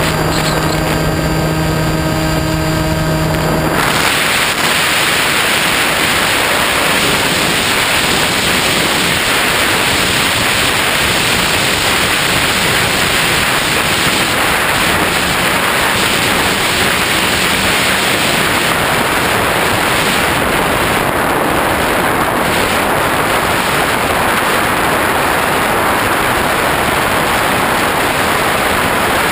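Airflow rushing over a GoPro mounted on a Skywalker X5 flying wing, heard as loud, steady wind noise. For the first four seconds the X5's electric motor and propeller hum with a steady tone, which cuts off suddenly, leaving only the wind rush.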